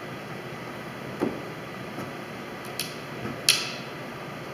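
A few separate wooden knocks and clicks as slatted wooden cockpit bench boards are handled and set into place, the sharpest click about three and a half seconds in.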